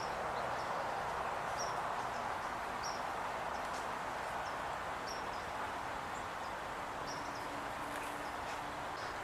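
Sparrows giving short, high chip notes, about one a second, over a steady hiss of outdoor background noise.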